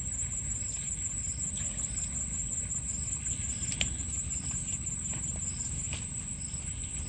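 Outdoor background sound: a steady high drone with short high chirps every second or so over a low rumble. A few faint clicks come through, the sharpest about four seconds in.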